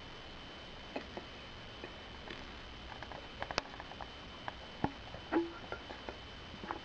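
Light, irregular taps and clicks, with one short low tone about five seconds in, over a faint steady high whine.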